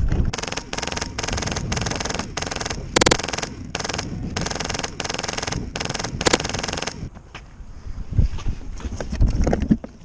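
Compressed-air Polarstar Fusion Engine MK46 airsoft light machine gun firing a rapid string of short bursts, about a dozen of them, with two sharper cracks among them. The firing stops about seven seconds in, leaving only a few low thumps.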